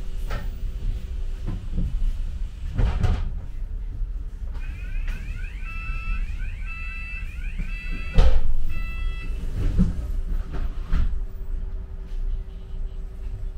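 London bus running, heard from inside: a low engine and road rumble with knocks and rattles, the loudest about eight seconds in. A repeated electronic beep sounds from about four and a half to nine and a half seconds in.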